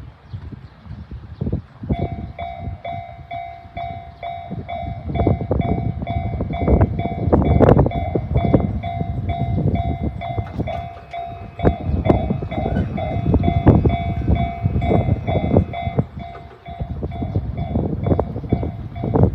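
Japanese railway level-crossing warning bell, the JR standard electronic sound, starting about two seconds in and ringing in a steady, even rhythm: the signal that a train is approaching. A low, irregular rumble runs underneath.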